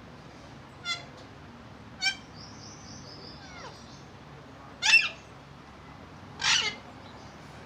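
Pet parrot calling: four short, harsh squawks, the loudest about five seconds in, with a faint high whistle between the second and third.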